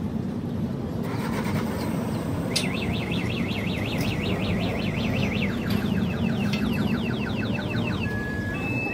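Steady low rumble of engines and road traffic. From about two and a half seconds in, a high tone warbles rapidly up and down for about five seconds, then breaks into a few short steady beeps near the end.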